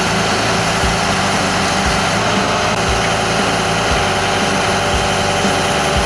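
Ford F550 tow truck's engine running steadily while it drives the Vulcan 882 wrecker's hydraulic boom lifting a car, with a low thump about once a second.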